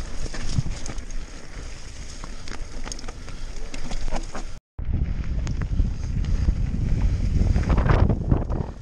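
Mountain bike rolling over a wet, rough dirt trail: tyres on mud and stones with frequent clicks and rattles from the bike, under a steady rumble of wind on the microphone. A short dropout a little past halfway, after which the wind rumble is louder.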